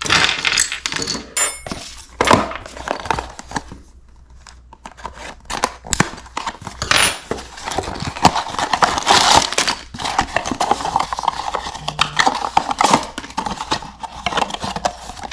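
Hands opening a small cardboard toy box close to the microphone: cardboard flaps scraping and rustling, with many small taps and knocks as the box is turned and handled.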